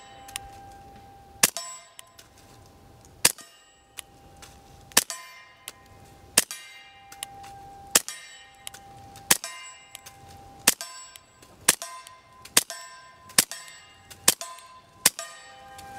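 Suppressed Beretta M9A3 9mm pistol with a Griffin Armament Revolution 9 suppressor firing subsonic rounds: about a dozen muffled shots, each answered by the ringing clang of a steel plate hit downrange. The shots come every second or two at first, then faster near the end.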